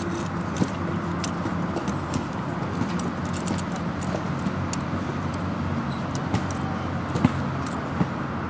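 Scattered sharp plastic clicks from a Hasbro Transformers Prime Wheeljack figure as its parts are moved and snapped during transformation. They sit over a steady low background rumble.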